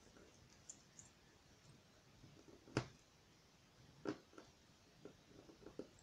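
Quiet handling of a glue stick and small cardstock pieces on a tabletop: one sharp click near the middle, another about a second later, and a few softer taps near the end.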